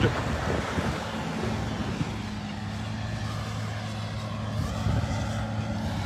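A steady low engine hum, with an even rushing noise of wind over it.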